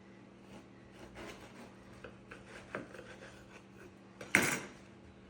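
Kitchen handling sounds around the finished sandwich: soft scraping and rubbing with a few light knocks, then one sharp, loud knock about four and a half seconds in.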